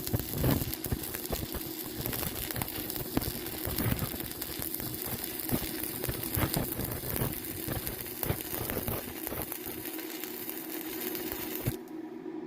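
Arc welding: a steady crackling hiss with irregular pops that cuts off suddenly near the end. A steady low hum carries on underneath.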